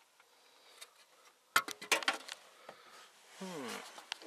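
A quick cluster of sharp clicks and knocks from things being handled and moved while rummaging inside a scrap car's interior, followed near the end by a short sound that falls in pitch.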